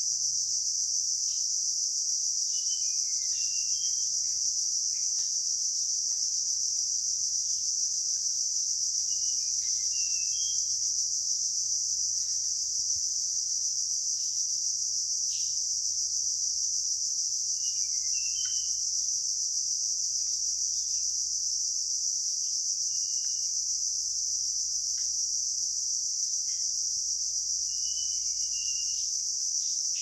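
A steady, high-pitched drone of insects shrilling without a break. Short chirping bird calls break in every few seconds.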